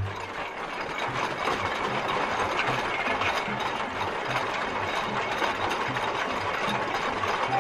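Tractor engine sound effect: a dense, steady mechanical clatter with a low, regular chugging beat underneath.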